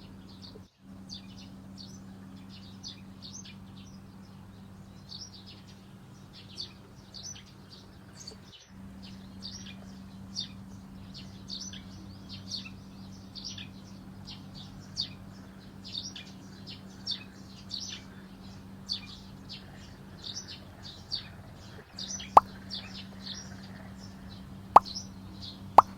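Small birds chirping: short, high chirps repeated a few times a second over a steady low hum, with a few sharp clicks near the end.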